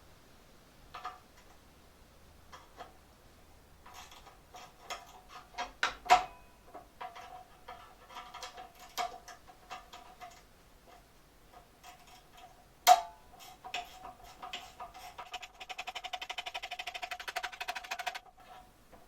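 Metal tools and parts clinking and knocking while a band saw is being stripped down, with a ringing metallic tone after the hits. There are two sharp metallic knocks, about 6 and 13 seconds in, and near the end a fast ticking rattle lasting about three seconds.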